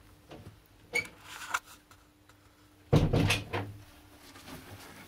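A few light clicks, then a heavier dull knock about three seconds in, followed by a few softer knocks.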